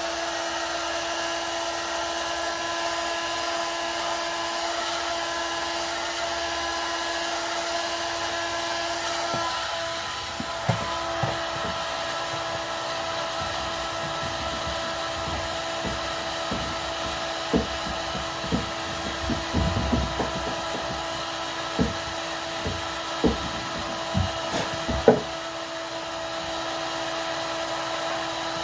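Heat gun running steadily with a constant whine while it softens the plastic flange of a flush-mount rod holder on a kayak. From about ten seconds in, a string of irregular knocks and bumps, the loudest near the end.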